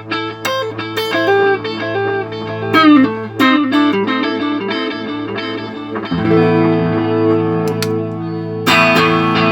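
Electric guitar played through a Line 6 DL4 delay pedal as a test of the repaired unit: a run of quick picked single notes, then from about six seconds in, held ringing chords, with a new chord struck near the end.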